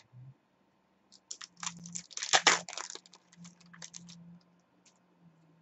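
Foil wrapper of a trading-card pack being torn open and crinkled by hand: a rapid run of crackling and tearing that is loudest about two and a half seconds in and tails off around four seconds.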